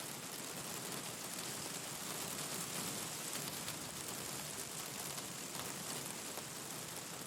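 Steady rain falling as an even hiss, mixed with small crackles and pops from a wood fire.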